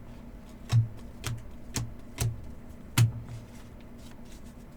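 Trading cards being handled and tapped down on a table: a run of sharp taps about every half second, the loudest about three seconds in.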